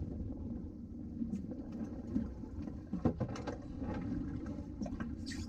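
Steady low rumble aboard a small fishing boat at sea, with a few knocks and clatters about three seconds in and again near the end.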